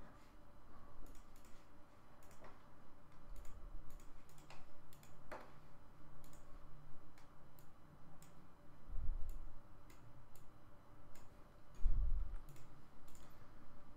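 Irregular clicks of a computer mouse and keyboard, a few every second or so, with two dull low thumps about nine and twelve seconds in.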